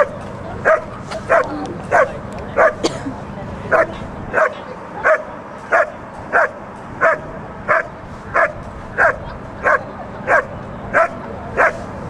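A working dog barking steadily at a helper cornered in the blind: the hold-and-bark of a Schutzhund protection routine. The barks are short, loud and evenly spaced, about one and a half a second, with no break.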